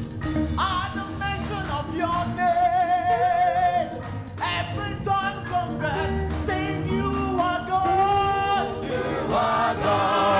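Gospel praise chorus sung by a small group of male and female singers on microphones, over musical accompaniment, cutting in suddenly.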